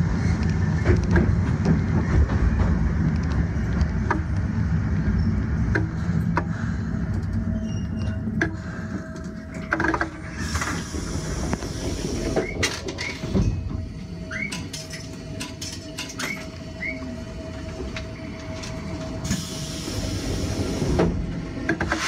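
Randen tram running, heard from the driver's cab: a low rumble of wheels and motors on the track for about the first ten seconds. It then drops to a quieter stretch as the tram stands still, with a faint steady tone and a few short chirps.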